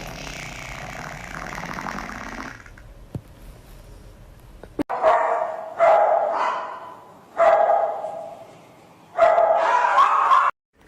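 A dog barking loudly four times, the last bark drawn out.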